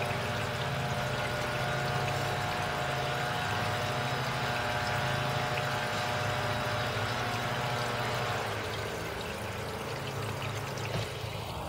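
Water pouring from a tube into a small turtle pond, a steady trickle and splash. Behind it runs a steady motor drone from landscapers' equipment, which weakens about two-thirds of the way through.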